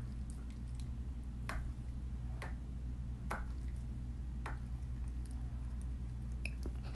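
Tabby cat chewing at the claws of one paw, each bite giving a sharp click, about once a second, over a low steady hum.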